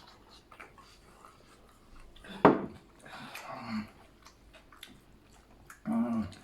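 A person chewing and eating grilled chicken, with small mouth and bone clicks scattered throughout. There is a sharp loud sound about two and a half seconds in and short vocal sounds just after it and near the end.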